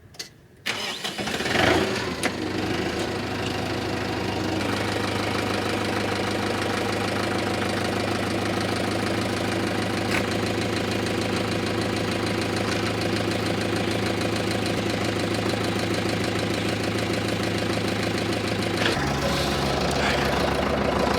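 An engine is started about two seconds in and then idles steadily. Near the end its running note changes and drops lower.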